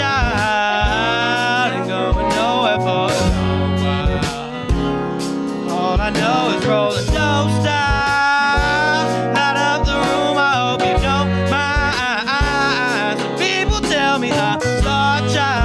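Live jazz-inflected hip-hop band playing with a steady beat: drum kit, bass guitar and keys, with melodic lead lines over them.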